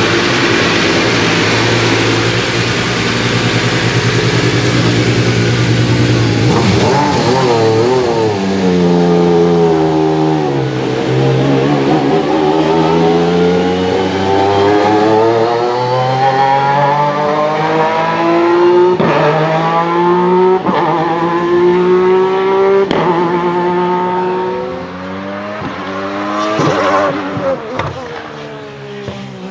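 Alfa Romeo 155 V6 TI DTM race car's V6 engine running at high revs. It drops in pitch as the car slows, then accelerates hard, rising in pitch in steps with sharp breaks at the quick upshifts, about three of them. It fades near the end, with a short rev.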